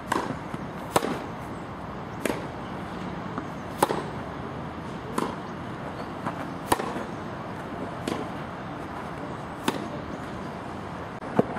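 Tennis rally: a ball struck back and forth by rackets and bouncing on the court, a sharp pop about every second and a half, with the loudest pops about every three seconds.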